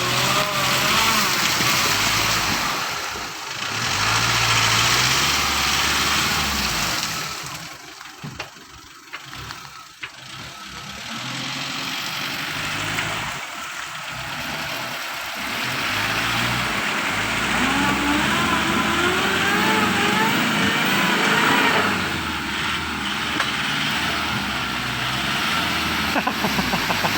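Mine light vehicle's engine revving in repeated surges, with a rising and falling whine, as it tries to pull out of mud it has sunk into. The revs ease off for a couple of seconds near the middle.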